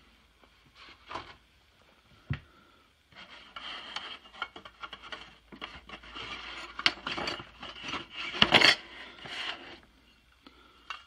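Handling of a cardboard box as it is opened and a small toy steam engine is lifted out of it: cardboard rubbing and scraping against the engine, with clicks. One sharp knock a couple of seconds in, then steady rustling and scraping from about three seconds in, loudest shortly before the end.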